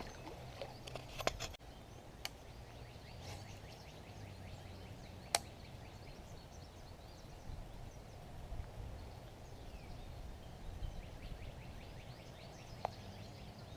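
Quiet outdoor ambience with a low steady background, faint high chirps coming in clusters, and a few single sharp clicks, the loudest about five seconds in.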